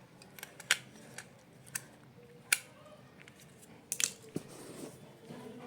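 Sharp, isolated clicks and snips of small hand tools on a plastic electrical plug switch, about five in all. The loudest comes about two and a half seconds in.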